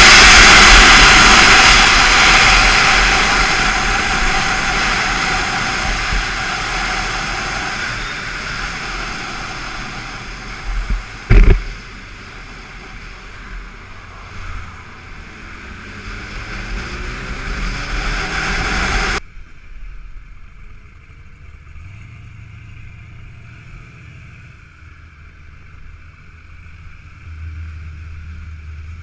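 Wind rush and the BMW S1000RR's inline-four engine heard from on board at speed, fading steadily as the bike slows, with one sharp knock partway through. Then an abrupt cut to a much quieter low engine hum at idle.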